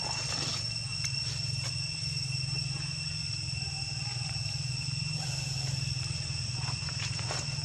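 Steady insect drone: a constant high whine with a higher overtone above it, over a steady low rumble, with a few faint clicks.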